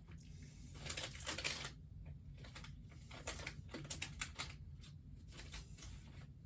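Light rustling about a second in, then a quick run of small clicks and taps, as of small things being handled.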